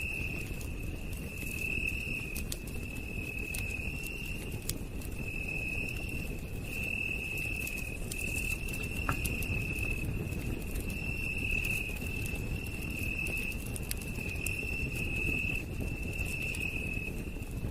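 Campfire crackling, with scattered small pops over a steady low rumble. Over it a night insect trills at one high pitch, in repeated stretches of about half a second to a second with short gaps.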